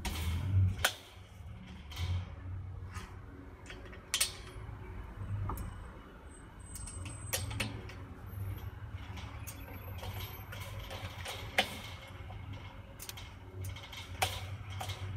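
Small metal clicks and clinks of grill parts and fasteners being handled and tightened on a Weber kettle charcoal grill's bowl, coming irregularly every second or so over a low steady rumble.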